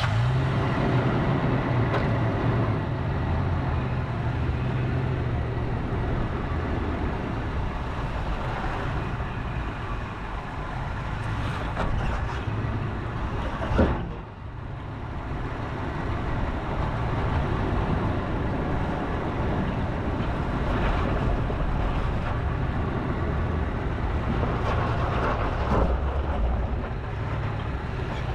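A Toyota FJ Cruiser's 4.0 L V6 running at low speed as the truck crawls over rough, rocky ground, with a steady low hum. There is a sharp knock about 14 seconds in and a smaller one near the end.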